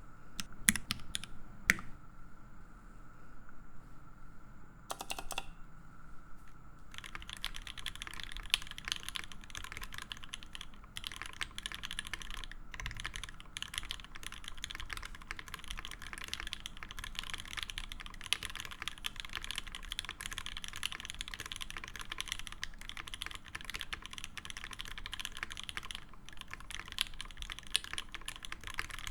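Typing test on a TX65v2 mechanical keyboard with a brass plate, lubed OP Black switches and GMK Botanical keycaps. A few scattered keystrokes come first, then a fast, steady run of key presses from about seven seconds in.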